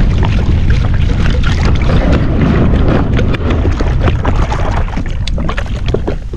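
Wind buffeting the microphone over water slapping and splashing against a kayak's hull, with many small sharp splashes throughout.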